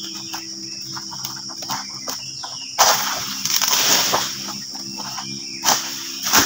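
Palm King Pro egrek pole sickle cutting an oil palm frond: a loud tearing rustle of fronds about three seconds in, lasting over a second, then two sharp knocks near the end.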